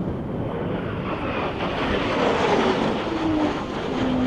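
F-16 fighter jet flying past: a steady jet engine rush with a whining tone that slides down in pitch through the middle.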